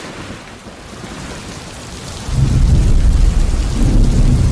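Heavy rain hissing steadily. About two seconds in, a deep rolling rumble of thunder comes in and goes on.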